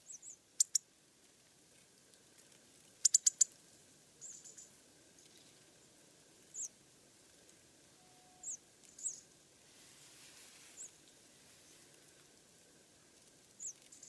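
Small tits, great tits and Eurasian blue tits, giving short, thin, high call notes every second or two, each sliding slightly down. Sharp clicks stand out: two near the start and a quick run of four about three seconds in.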